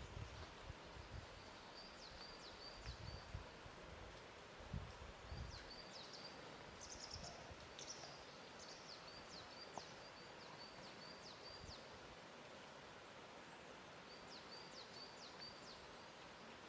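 Faint lake-shore ambience: a soft steady hiss with a few low, soft bumps of water lapping in the first few seconds, and a small bird calling in quick runs of short high chirps, three times.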